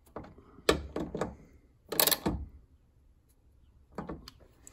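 Hand ratchet and socket tightening the sliding-door latch bolts: a few clusters of short metallic clicks and knocks, the loudest about two-thirds of a second and two seconds in.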